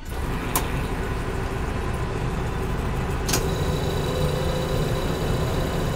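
Commercial soft-serve ice cream machine running steadily, its motor and compressor humming while soft serve is drawn into a cone. Two sharp clicks, about half a second in and just after three seconds, come from the machine's controls and draw handle being worked.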